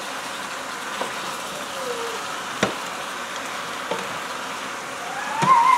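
Chicken pieces sizzling steadily in hot olive oil in an electric cooker pot as a utensil turns them, with about four sharp clacks of the utensil against the pot. A brief squeaky rising-then-falling tone comes near the end.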